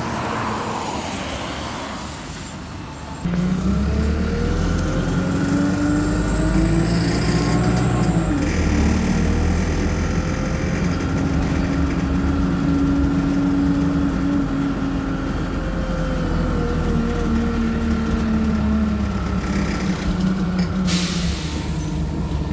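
Wright StreetLite single-deck bus's diesel engine heard from inside the saloon, pulling away and accelerating, its note rising and falling as it changes up through the gears. A short sharp air hiss comes near the end.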